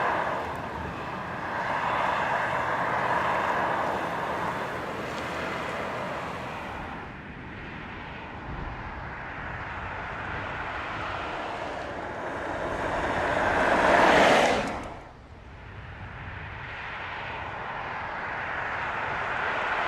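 Skoda Octavia Scout driving by, its tyre and engine noise swelling and fading several times. The loudest pass builds about two-thirds of the way through and then drops away sharply.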